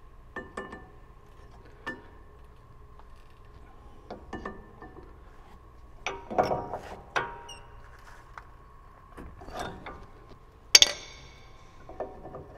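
Scattered metallic clicks, knocks and scrapes as a brake pad is pushed and levered into a Brembo brake caliper with a hand tool. The busiest stretch comes about six to seven seconds in, and the sharpest, briefly ringing click about eleven seconds in.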